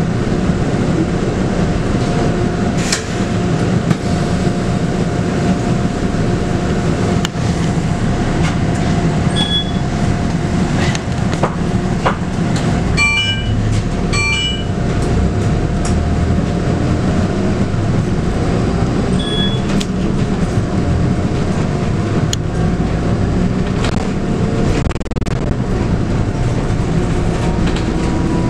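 Scania K280UB bus's 9.3-litre five-cylinder diesel running steadily under way, heard from inside the bus, with body rattles and clicks throughout. Two short electronic tones sound about halfway through.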